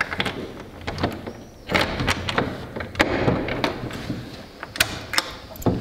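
A string of short clicks, knocks and light thuds from people moving about and handling things.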